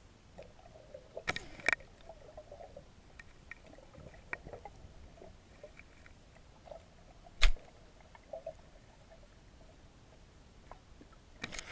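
A few sharp knocks and clicks, the loudest about seven and a half seconds in, with faint rubbing and scraping between them: the GoPro camera and its housing being knocked and handled.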